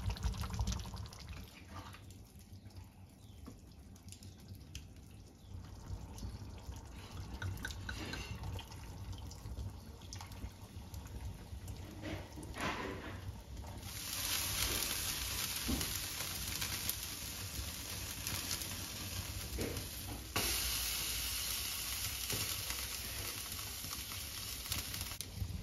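Water running in a steady hiss that starts about halfway through, stops briefly, then runs on. Before it there are a few faint knocks and clinks.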